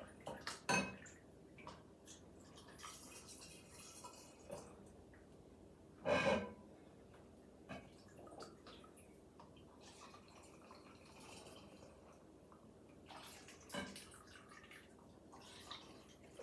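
Homemade liqueur being ladled and poured into a glass bottle: faint trickling and dripping, broken by a few short clinks of glass and utensils, the loudest about six seconds in.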